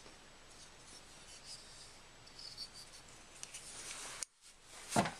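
Faint handling noise of a folding knife: light scratching and small ticks, then a sharp click near the end.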